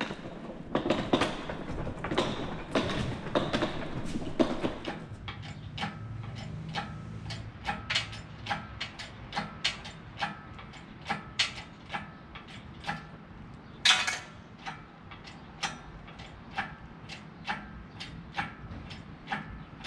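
Metal rattling for a few seconds, then sharp, evenly spaced metallic clicks about twice a second, with one louder click about two-thirds of the way through.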